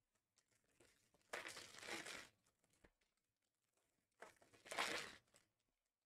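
Trading-card pack wrappers crinkling and tearing in two bursts of about a second each as packs are ripped open.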